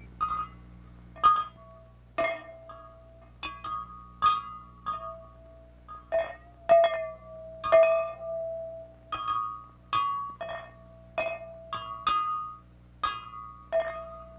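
Sparse music of struck, ringing percussion tones on a few repeated pitches, with sharp attacks and short decays, about two strikes a second in an irregular rhythm. A steady low hum runs underneath.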